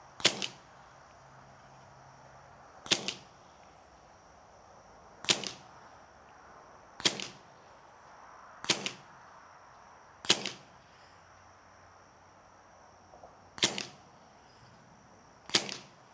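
Hatsan Velox .22 calibre semi-automatic PCP air pistol firing eight shots, one every one and a half to three seconds. Each shot is a sharp crack followed a split second later by a fainter second pop.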